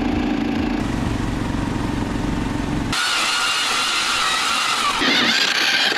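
Snow Dog tracked snow machine's small engine running steadily as it tows a sled over lake ice. About three seconds in it cuts to a power ice auger drilling into the ice with a steady high whine, which changes about two seconds later.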